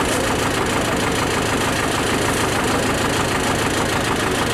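Diesel engine of a JCB backhoe loader running steadily, with a fast, even clatter and no change in pace.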